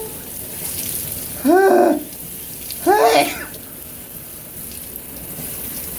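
Shower water running steadily onto a vacuum-cleaner filter, with two short, loud voice-like cries rising and falling in pitch about one and a half and three seconds in.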